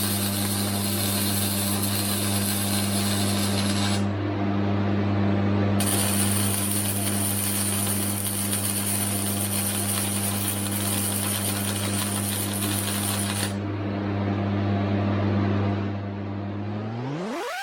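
Flux-core MIG welder running beads: steady crackling arc over the welder's hum, the crackle stopping twice for a second or two between runs. Near the end a tone sweeps quickly upward.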